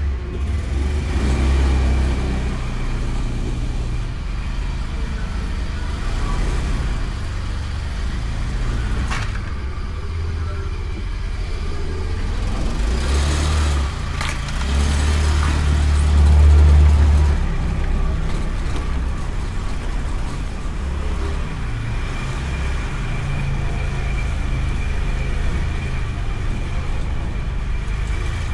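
Honda Beat motor scooter's single-cylinder engine running, its low rumble swelling and easing a few times, loudest about two-thirds of the way through.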